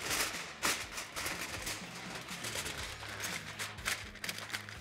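Aluminum foil crinkling and rustling in quick, irregular crackles as it is folded tightly around a rack of ribs by gloved hands.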